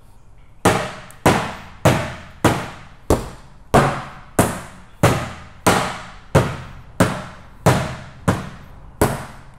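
Small sledgehammer striking hard and repeatedly, about fourteen evenly spaced blows roughly two thirds of a second apart, each a sharp bang with a short ringing tail. The blows begin about half a second in.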